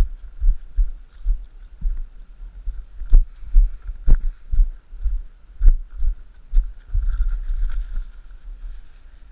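Footsteps of the camera wearer walking on a snowy, icy trail, heard mostly as dull thumps through a body-mounted action camera, about two a second, with a few sharper knocks among them. The steps fade out about eight seconds in.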